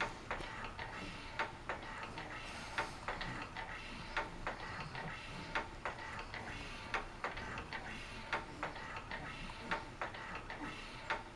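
Motorized baby swing ticking rhythmically as it swings back and forth: a louder click about every second and a half, with softer ticks in between.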